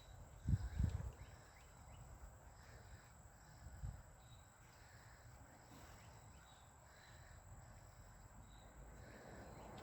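Faint outdoor ambience with distant birds calling, short high calls about a second apart. A few low bumps of phone handling near the start.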